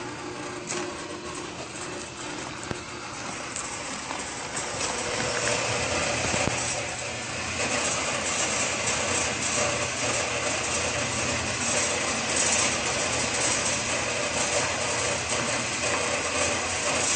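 The electric motor and V-belt pulley drive of a Hinds-Bock stainless accumulating turntable running with a steady hum. It gets louder about five seconds in.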